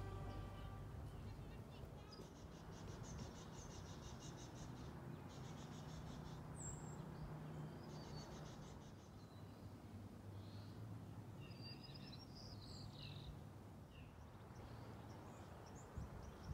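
Faint outdoor ambience: a high, rapidly pulsed trill in three spells of a couple of seconds each, then a few scattered bird chirps, over a steady low hum.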